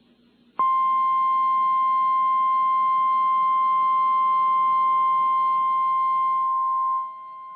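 Emergency Alert System attention tone received off AM radio: a steady, single-pitched tone with faint overtones that starts about half a second in, then drops sharply in level about seven seconds in and carries on more quietly.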